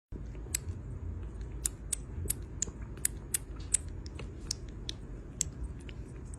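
Irregular sharp clicks or crunches, two or three a second, over a steady low rumble.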